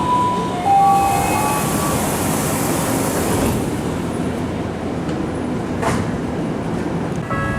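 Tokyu Oimachi Line electric train at a station platform as its doors close: a short chime of a few steady tones near the start, then the train's steady noise with a hiss, and a single knock about six seconds in.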